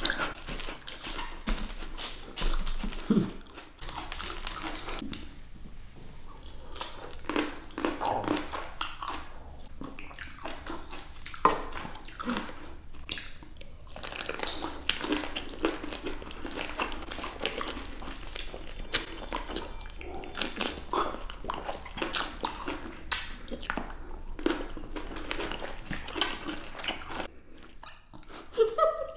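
Close-miked biting and chewing of fresh green and red grapes by two people: juicy mouth sounds with many small sharp clicks throughout.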